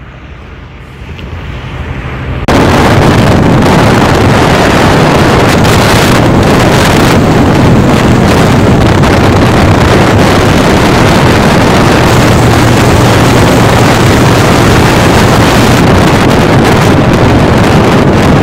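Heavy wind buffeting on the microphone of a motorcycle riding at highway speed, with a steady engine hum underneath. It comes in suddenly about two seconds in, after a much quieter stretch that slowly grows louder.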